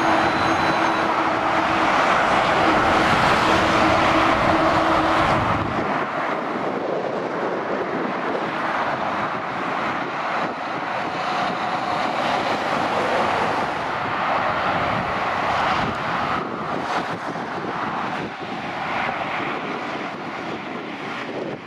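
Heavy lorries and cars passing on a dual carriageway below: a steady rush of tyre and engine noise. A droning note stands out over the loudest stretch, which ends about five and a half seconds in.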